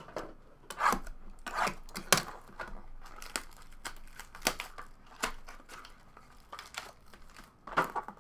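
Clear plastic shrink wrap on a sealed baseball card hobby box being torn off and crinkled by hand, in a string of sharp crackling tears about a second apart.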